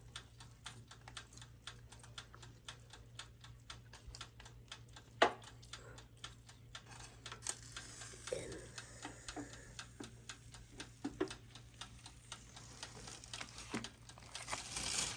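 Chicken barbecue cooking on a grill, crackling with many rapid small pops, with one sharp knock about five seconds in and a hiss that grows near the end.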